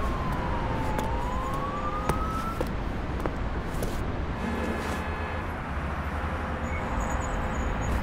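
Layered city-street sound-effects mix: steady traffic rumble, with a distant siren whose pitch falls and then rises over the first couple of seconds. Scattered footstep clicks from boot footsteps pitched up to sound like heels run through it.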